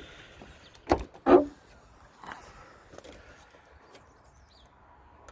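Two sharp clunks about a third of a second apart, then faint rattling and handling noise, as the wiring plug and loose trim inside a Discovery 4 tailgate are worked by hand.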